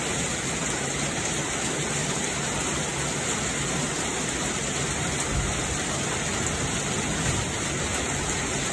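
Heavy rain pouring steadily, a constant hiss of rain on the ground and surfaces.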